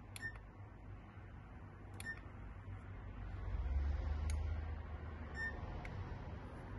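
Panasonic CQ-VX02 car CD/MD head unit giving three short electronic key-press beeps, with a couple of faint button clicks between them. The last beep comes as the unit is switched off.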